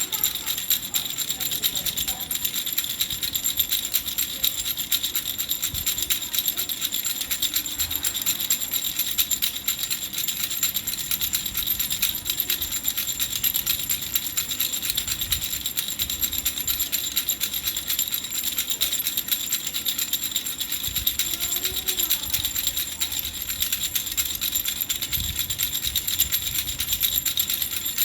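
A khulkhula, a child's hand rattle, shaken continuously: a fast, even rattling with a bright metallic jingle.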